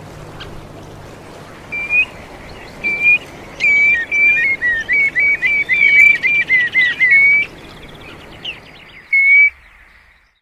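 Wading birds calling: clear whistled notes, a few single ones, then a quick run of short downward-slurred notes in the middle, and one more near the end. A steady background rush lies under them and fades out near the end.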